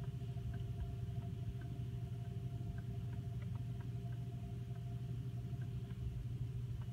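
Touchless car wash heard from inside the car's cabin: a steady, muffled low rumble of the wash machinery and water over the car, with a constant hum and a few faint ticks of drops on the glass.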